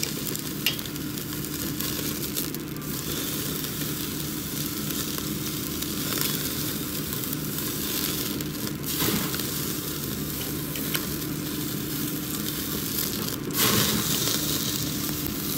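Fatty A5 wagyu slices sizzling on the wire mesh of a yakiniku grill, fat dripping into the flame and flaring up, with scattered crackles. The sizzle swells louder for a moment near the end.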